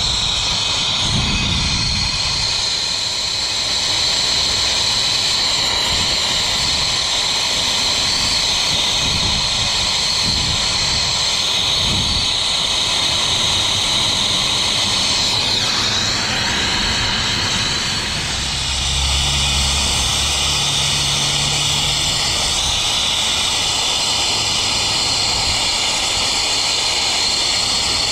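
Brazing torch flame burning with a steady hiss while copper refrigerant line joints are brazed, its tone shifting briefly a little past halfway through.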